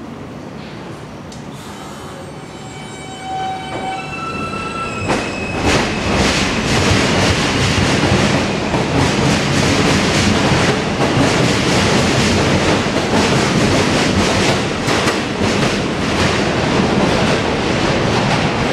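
Alstom R160A-2 subway train pulling out of the station. Its propulsion sends out a few steady tones that step up in pitch as it starts to accelerate. A few seconds in, a loud, steady clatter of wheels over the rail joints takes over as the cars pass.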